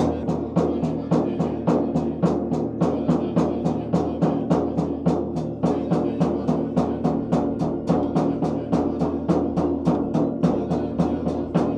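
Tibetan Buddhist ritual drum beaten in a fast, even rhythm of about four strikes a second during a monastery puja, over a steady low drone.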